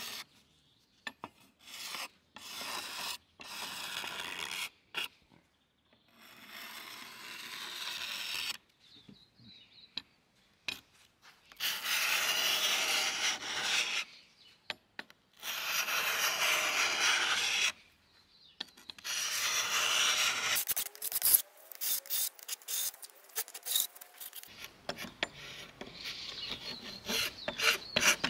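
Hand paint scraper rasping along plywood, stripping flaky old paint, in separate strokes of one to several seconds with gaps between. Near the end comes a run of short clicks and knocks.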